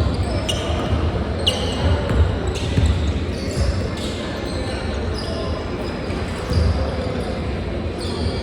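Basketball bouncing on a gym court at irregular intervals, with brief high sneaker squeaks and a murmur of voices behind.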